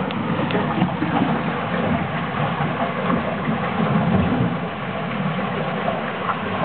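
Steady rushing, rumbling noise of water along the hull of an Aviateur 5.70 sailboat under way, heard from inside its cabin. It swells slightly about four seconds in.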